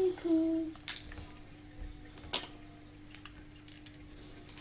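A few light clicks and taps from small plastic candy-kit pieces being handled, the sharpest about two and a half seconds in, over a steady low hum. A short voice sound comes right at the start.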